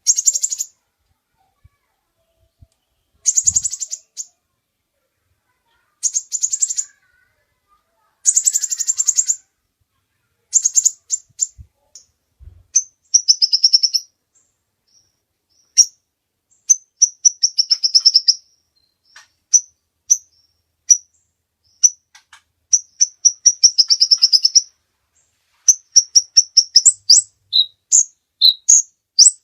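Ruby-cheeked sunbird (kolibri ninja) singing: short, very high, rapid trilled phrases with pauses between them, then a fast run of sharp separate chirps through the second half.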